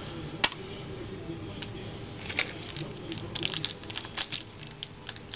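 Trading cards being handled and flipped through by hand, with a sharp click about half a second in and then a run of light clicks and rustles.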